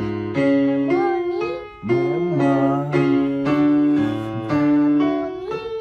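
Piano playing held notes of a vocal warm-up exercise while a young girl sings along, sliding her voice up to match each note. The notes change in steps, with a new note struck about two seconds in.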